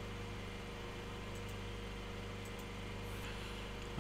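Steady low mechanical hum at a constant pitch, like a small engine or motor running.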